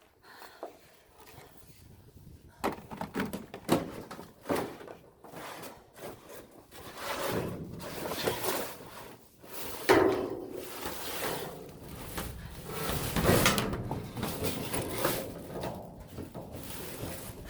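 Hard objects being rummaged through and handled: an irregular run of clunks, knocks and scraping, with a sharp bang about ten seconds in.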